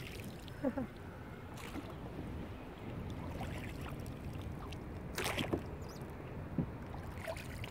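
Rowboat being rowed with wooden oars: a few knocks and short creaks from the oars working in their oarlocks and the blades dipping in the water, over a steady low rumble.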